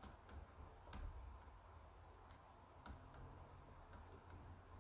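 A few faint, sparse clicks of a pen tapping a drawing tablet as a word is handwritten, over a faint low hum.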